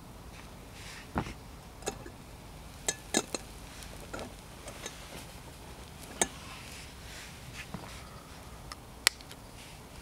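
Camp dishes and utensils clinking: about seven short, light knocks and clinks at uneven intervals, the sharpest near the end, over a steady low background.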